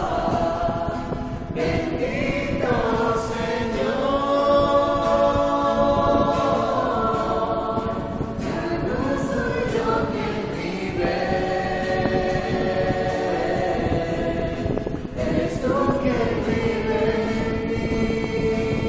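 A small mixed group of voices singing a hymn together, holding long notes, with a strummed acoustic guitar.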